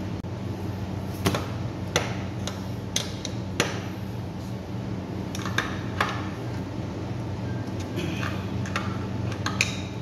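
Sharp metal clicks and clinks of steel wrenches against the axle nut and axle of an electric scooter's rear hub motor, about nine separate knocks at uneven intervals over a steady low hum.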